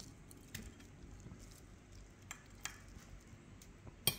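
Faint scattered clicks over low room noise, with one sharper click near the end, from a metal fork touching the plate.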